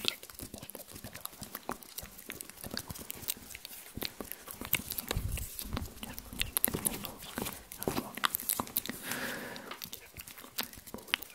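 Close-miked ASMR hand and mouth sounds: a dense run of small clicks and crackles, with a few soft low thumps.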